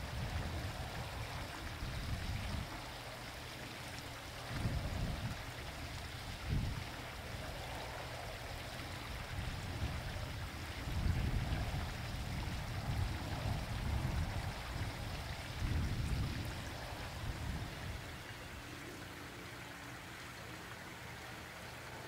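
Steady splashing and trickling of water running over the rocks of a backyard pond, with irregular low rumbles of wind buffeting the microphone. Near the end the rumbles stop and only a quieter, steady hiss remains.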